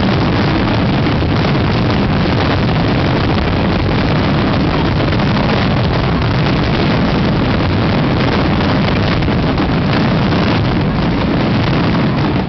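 Daytime fireworks barrage: aerial shells and firecrackers bursting so thickly that the bangs merge into one loud, continuous rumble with crackling, without a break.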